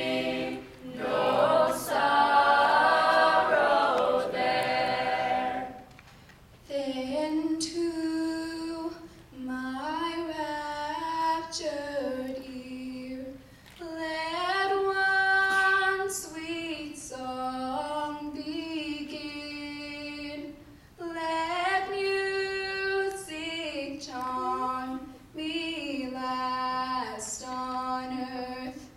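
Mixed-voice a cappella group singing in full harmony. About six seconds in the harmony thins out, leaving mostly one female voice singing short phrases with brief pauses between them.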